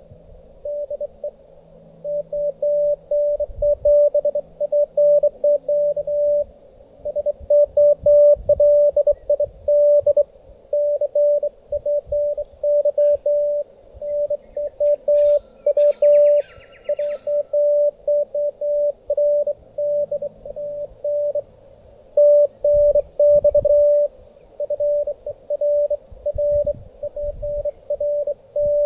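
Morse code (CW) tone from a Xiegu G90 ham radio transceiver: a single steady mid-pitched note keyed on and off in dots and dashes, with short pauses between groups.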